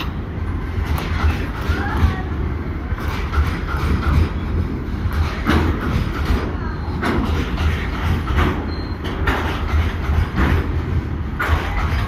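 Train of BTPN tank wagons rolling past at close range: a steady low rumble, with repeated clacks of the wheels running over the rail joints.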